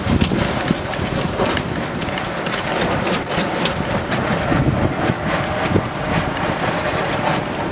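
Sailboat under way: wind buffeting the microphone and water rushing along the hull, with frequent small clicks and knocks.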